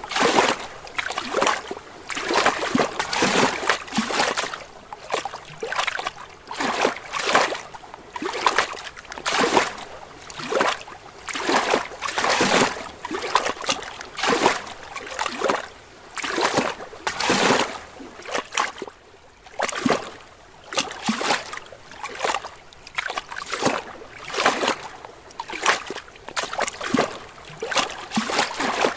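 Small lake waves lapping gently against rocks, in quick, irregular splashes about one a second, briefly quieter about two-thirds of the way through.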